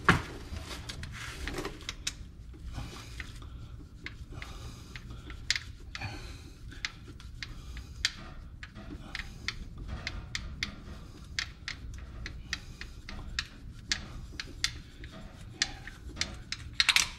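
Torque wrench ratcheting in irregular runs of sharp clicks as the bolts of the rear differential's electromagnetic coupler are tightened to 42 N·m, over a low steady hum.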